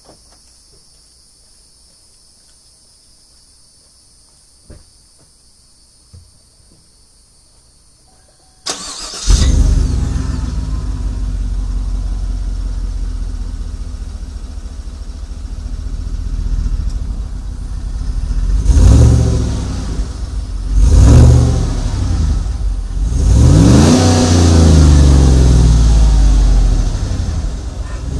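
Crickets chirping, then the 2014 GMC Sierra's 5.3-litre V8 cranks and starts about nine seconds in through a muffler-delete exhaust with only a small baffle tip. It idles with a low rumble, then is revved several times, the pitch rising and falling with each blip.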